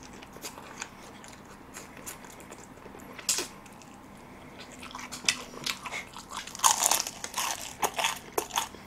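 Close-up crunching and chewing of crispy curry-seasoned fried chicken: one crisp crunch about three seconds in, then a dense run of loud, crisp crunches from about five seconds on.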